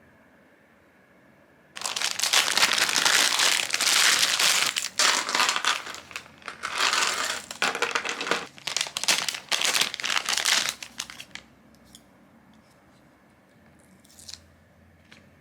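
Packaging crinkled and rustled by hand, starting suddenly about two seconds in and going on in uneven bursts for about nine seconds before it stops, with a few faint ticks afterwards.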